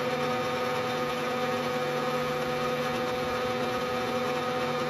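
Vertical milling machine spindle running steadily, a motor hum with a few steady tones, while a 1/8-inch drill bores a blind hole in a small magnesium engine cylinder.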